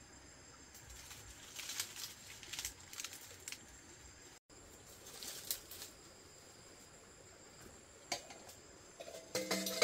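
Intermittent rustling and scraping in short bursts, with a few sharp clicks near the end, the last one briefly ringing like a light clink.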